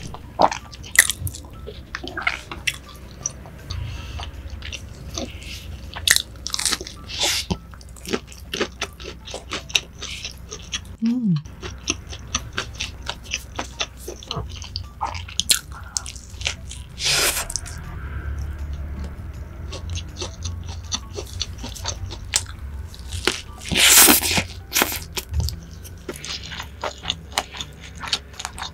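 Close-miked eating: crisp bites into crunchy fried food and chewing of a tortilla wrap dipped in cheddar cheese sauce, with many small crackles and wet mouth sounds and a few louder crunches, the loudest about 24 seconds in.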